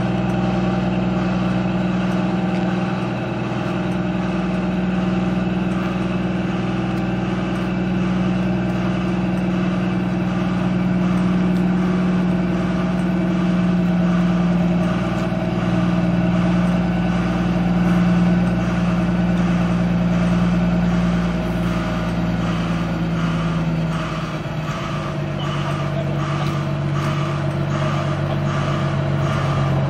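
Heavy haulage truck's diesel engine running steadily under load as it reverses slowly, pushing a long low-loader trailer, with a reversing beeper sounding at a regular pace. The engine note drops about three-quarters of the way through.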